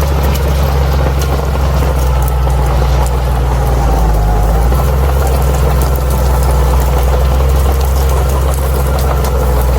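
Crawler bulldozer's diesel engine running steadily: a deep, even drone with scattered light clicks over it.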